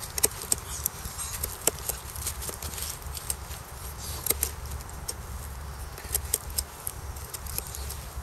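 Ka-Bar USN Mark 1 knife blade shaving curls down a barked branch to make a feather stick: short, irregular scraping clicks, a few each second.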